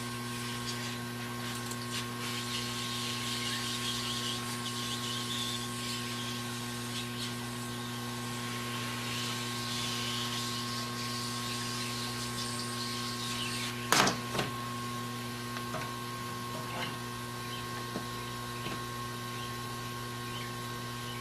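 Steady electrical hum under faint scratching and handling noise, with one sharp click about two-thirds of the way through.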